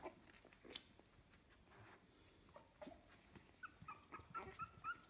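Fifteen-day-old Staffordshire Bull Terrier puppies whimpering faintly: a run of short, high squeaks starts a little past halfway, after a few soft rustles and clicks.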